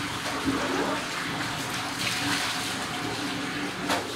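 Water running and splashing while a wet dog is washed by hand, with a single sharp click near the end.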